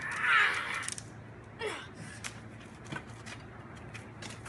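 A boy's loud shout lasting about a second, then a few faint clicks.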